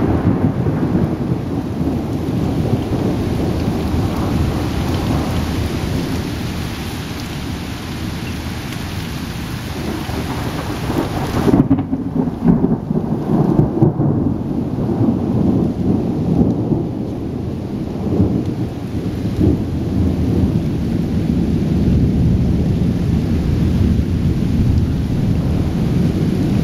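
Thunder rumbling on and on with the steady hiss of rain. A little under halfway through the thunder peaks in several sharp cracks, and the rumble then carries on.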